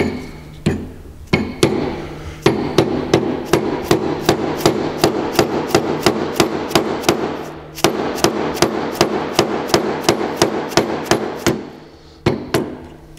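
Hammer tapping a drill bit used as a punch, driving the stem of a drilled-out rivet out of a throttle body casing held in a vise. It strikes quickly and evenly, about three times a second, with short pauses between runs.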